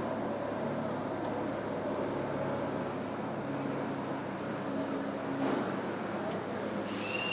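Steady machine noise, an even rush over a low hum.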